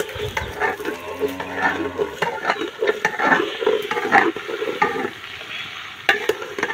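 A spoon stirring okra, tomatoes and spices frying in ghee in a cooking pot: irregular scrapes and knocks of the spoon against the pot over the sizzle of the frying.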